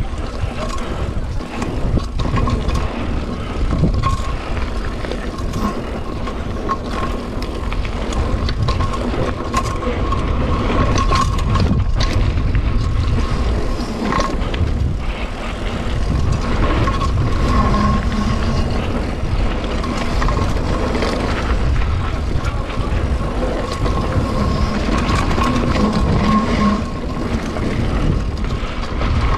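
Mountain bike descending a dirt and gravel trail at speed: steady wind noise on the action-camera microphone, with tyre noise and frequent clicks and knocks from the bike rattling over bumps.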